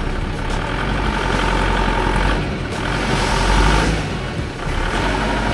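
Heavy vehicle engine running with a steady deep rumble, swelling louder twice, most strongly about three and a half seconds in.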